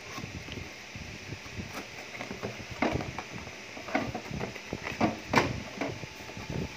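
Cardboard box being opened by hand: the flaps are lifted and pulled back with scraping and irregular knocks of cardboard. A few knocks stand out, the loudest about five seconds in.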